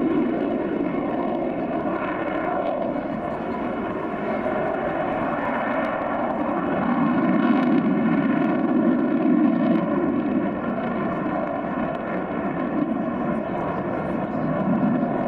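Avro Vulcan bomber's four Rolls-Royce Bristol Olympus 202 turbojets in a flypast: a continuous jet roar with a steady pitched whine over it, swelling a little about halfway through.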